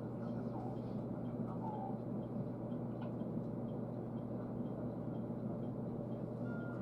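Steady hum inside a stopped train carriage, from its onboard equipment running while the train stands waiting, with a faint ticking about twice a second.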